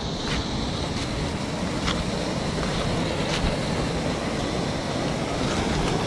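Steady rush of a shallow river and a small waterfall, with wind buffeting the microphone and a few light clicks.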